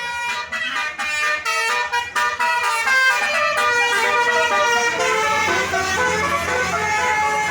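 Tour bus telolet horn, a multi-tone musical air horn, playing a fast tune of short notes that change pitch every fraction of a second. A low engine rumble joins about five seconds in.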